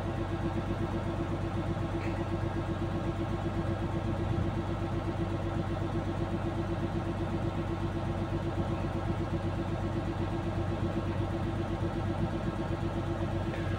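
Hitachi hydraulic excavator's diesel engine idling steadily.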